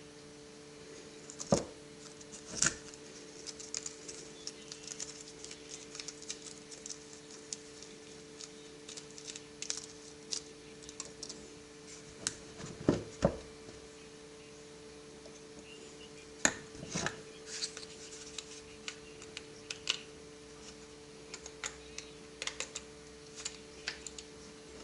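Scattered light clicks and knocks of small hard parts being handled on a bench, a few of them sharper, over a steady hum.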